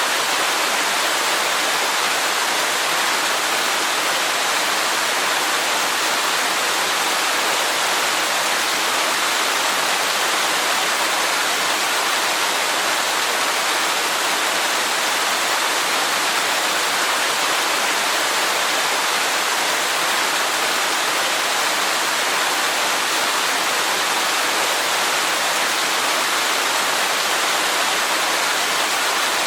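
Waterfall rushing: a steady, unbroken hiss of falling water, strongest in the middle and high range with little deep rumble.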